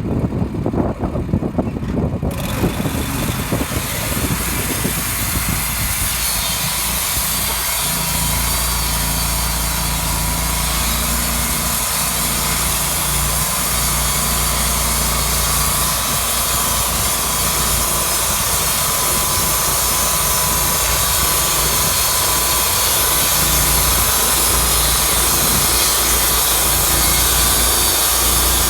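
Engine-driven sawmill running, and about two seconds in the blade starts cutting a spruce log: a steady loud hiss of sawing over the engine's hum that carries on unbroken.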